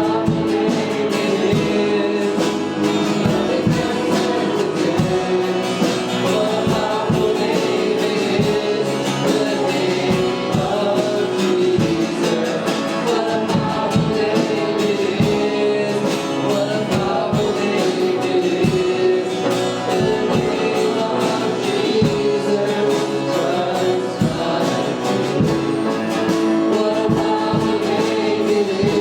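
Live church worship music: several voices singing over guitar, with a steady beat.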